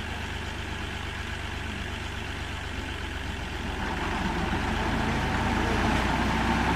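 New Holland tractor engine running steadily, driving the tubewell pump; it grows louder about four seconds in.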